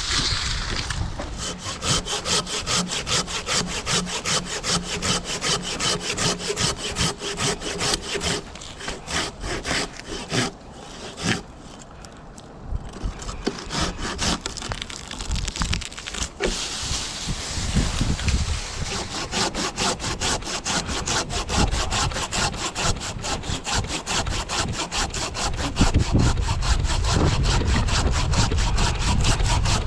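Silky Sugoi 360 hand saw cutting through chestnut wood with fast, regular push-pull strokes. The strokes pause briefly about a third of the way in, then resume.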